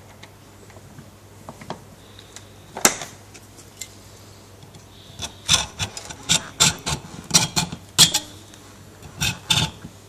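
Hacksaw blade cutting into a brass hose-barb fitting held in a bench vise: a run of quick, uneven scraping strokes starting about five seconds in, with a short pause near the end. A single sharp click comes about three seconds in.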